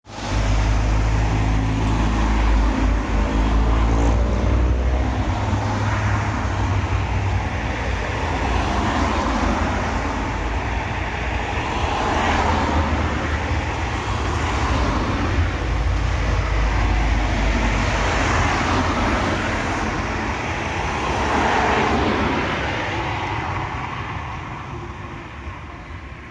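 Steady low engine rumble with an even rushing noise over it, fading over the last few seconds.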